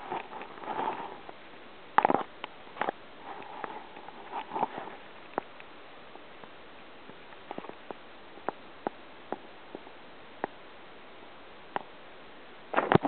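Paper bag crinkling as a cat shifts inside it: scattered soft clicks and short rustles. Near the end a burst of loud crackling and rustling sets in.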